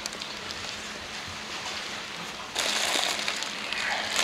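Steady background hiss with a faint low hum. About two and a half seconds in, a louder rustling noise starts as a plastic fish bag is handled over an aquarium.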